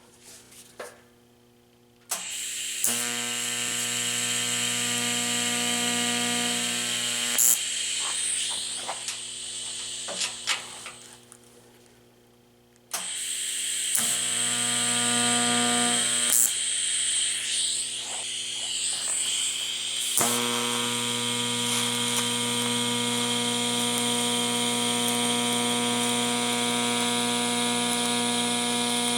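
An electric power tool's motor running with a steady hum and a high hiss, coming on about two seconds in, dying away around eleven seconds and starting again at about thirteen seconds.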